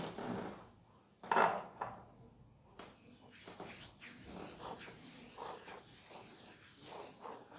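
Hands rubbing and pressing on a man's scalp, hair and neck during a head massage: irregular short rustling rubs, with one louder brief sound about a second and a half in.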